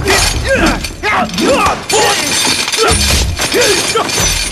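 Fight-scene sound effects: repeated crashing and breaking, mixed with many short yells that rise and fall in pitch.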